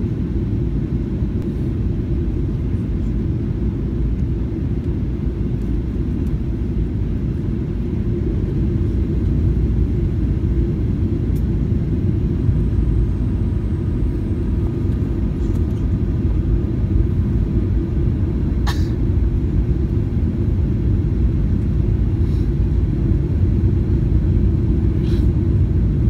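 Steady low rumble of cabin noise inside a Boeing 737-800 airliner on its approach, from the engines and the air rushing past the fuselage, with a single sharp click about three-quarters of the way through.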